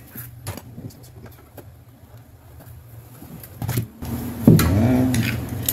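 Light clicks and knocks of hands handling the plastic case of an electric fence energizer, taken apart on a bench. About four seconds in the background gets louder, and a sharper knock follows soon after.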